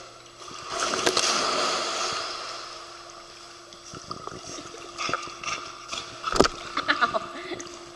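Pool water splashing and sloshing as a large dog swims: a loud rush of splashing about a second in that slowly dies away, then smaller splashes and a sharp knock a little past the middle.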